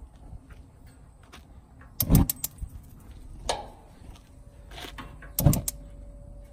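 Weber Genesis 330 gas grill's newly replaced electronic igniter firing in about four short runs of rapid clicking, some with a dull thump alongside. The igniter is sparking again after the module swap.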